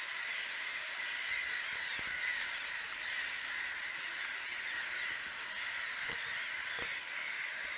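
A large colony of gulls calling at once: a steady din of many overlapping harsh calls.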